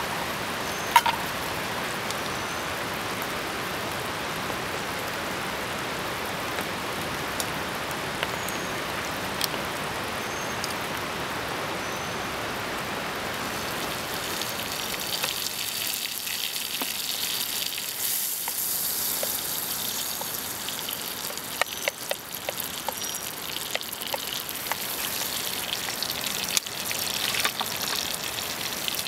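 Steady heavy rain pattering over a campfire cook site. From about halfway it turns into a higher hiss with many small crackles, as oil sizzles in a frying pan over the fire.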